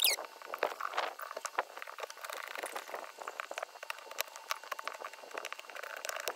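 Utility knife blade scraping old silicone sealant off the roof around a stovepipe flue: quick, irregular scratching strokes. There is a brief high falling squeak right at the start.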